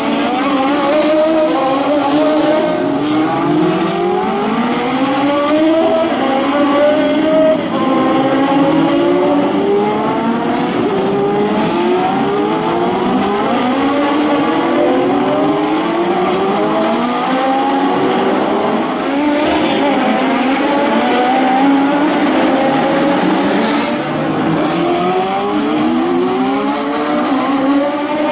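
Several historic Grand Prix racing cars at full throttle, close together. Each engine's pitch climbs steeply, then drops at the upshift and climbs again, and the cars overlap one another throughout.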